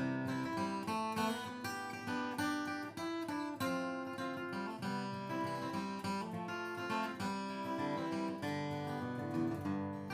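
Martin dreadnought acoustic guitar played with a flatpick: a continuous run of picked single notes and chords.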